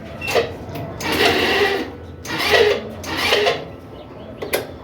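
Italika DS 150 scooter's electric starter motor cranking in repeated short bursts, making the strange grinding noise that marks a faulty starter.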